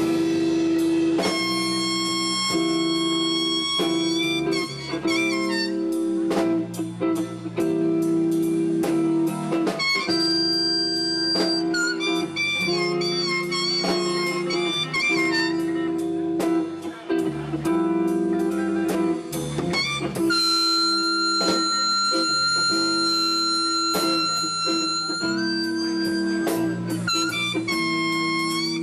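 Live blues band playing an instrumental break: long held harmonica notes that bend in pitch, over electric guitar and a steady drum beat.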